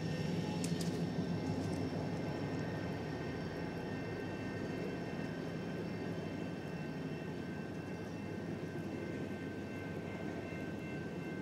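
CP work train rolling past: a steady rumble that eases slightly, with faint steady high whines over it.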